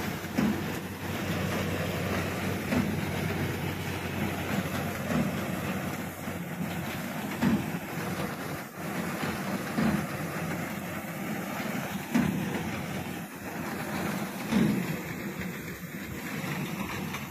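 Reaper binder running in a wheat crop: a steady mechanical clatter, with a heavier low knock repeating evenly about every two and a half seconds.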